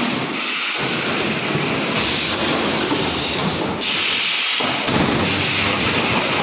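EPS 3D-panel wire-mesh welding machine at work: a loud, steady, hissing noise with no clear rhythm.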